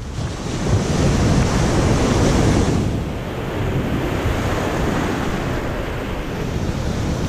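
Ocean surf breaking and washing through the shallows, with wind rumbling on the microphone. The hiss of foam is strongest for the first few seconds, then thins, leaving the low rumble of water and wind.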